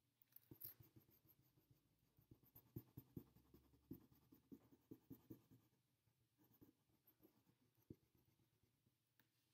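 Faint scratching of a colouring stick shading on sketchbook paper in quick strokes, filling in the raccoon's yellow boots. The strokes come thickly in the first five or six seconds, then thin out and stop about eight seconds in.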